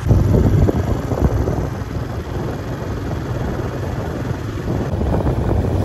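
Motorcycle running at road speed, with wind buffeting the microphone.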